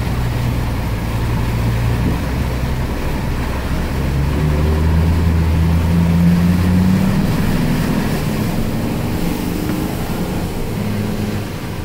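Truck engine pulling through floodwater, its pitch rising from about four seconds in and easing off after about seven, over a steady wash of water noise.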